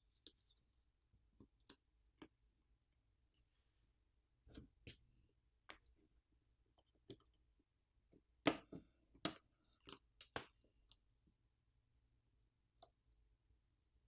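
Faint, scattered clicks and taps from handling a smartphone's internals as the wireless charging coil and motherboard cover are lifted off the frame. The sharpest cluster of clicks comes about eight to ten seconds in.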